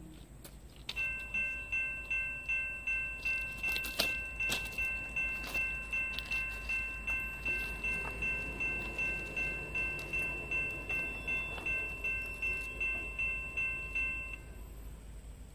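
Railroad grade-crossing warning bell ringing, about two strikes a second, starting about a second in and stopping shortly before the end: the crossing signal warning of an approaching train. A couple of sharp clicks about four seconds in.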